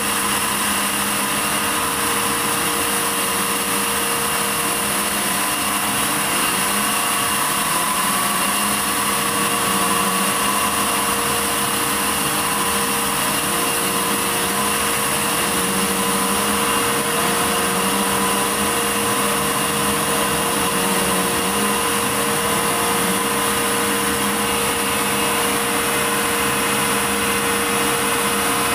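Sawmill saw machinery running steadily: a continuous mechanical drone with several fixed steady tones and a high hiss, unchanging in level.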